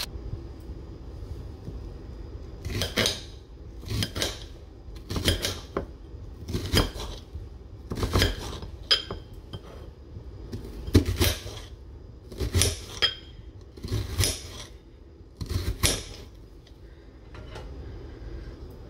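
A kitchen knife cutting through an onion and striking the plate beneath it. There are about ten sharp clinking cuts, often in quick pairs, spaced a second or more apart, from about three seconds in until near the end.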